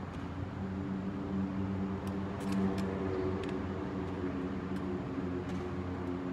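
Wooden chess pieces clacking down on the board and chess clock buttons being pressed in quick blitz play: a run of sharp clicks through the middle, over a steady low hum.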